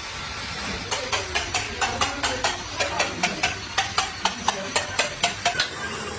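Rapid, evenly spaced sharp taps, about four a second, starting about a second in and thinning out near the end, over a low background hum.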